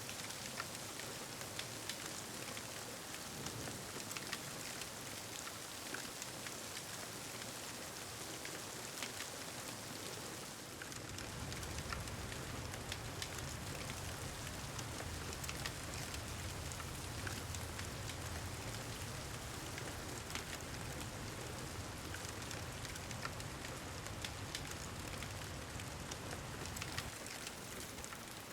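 Steady rain falling, dotted with sharp little crackles of a wood fire. About eleven seconds in, a low, steady rumble of distant thunder joins and carries on under the rain.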